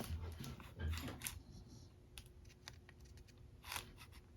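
Small clicks and light knocks of hands working a circuit board while a new tactile push-button switch is fitted into it, most of them in the first second or so, with a few more later on.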